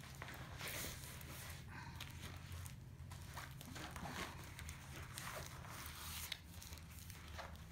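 Faint rustling and crinkling of a rolled diamond painting canvas being handled and unrolled, over a low steady hum.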